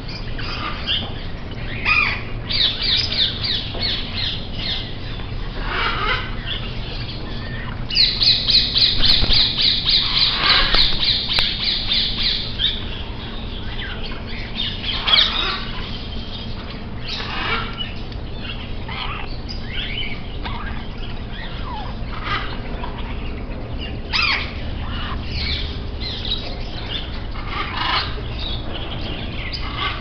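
A flock of caged budgerigars and parrots chattering and calling in short high notes, with a dense run of rapid chirping from about 8 to 12 seconds in. A steady low hum runs underneath.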